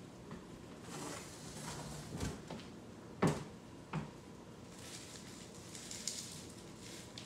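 Bubble wrap and tape being handled and adjusted where it hangs across a doorway: soft plastic rustling in two stretches, with a few short knocks, the loudest about three seconds in.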